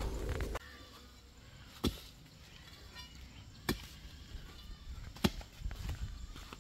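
A long wooden-handled tool is jabbed into wet, packed mud beside a stuck car's front wheel to dig it free. There are three sharp strikes about a second and a half to two seconds apart, then smaller knocks near the end. A steady low rumble cuts off abruptly about half a second in.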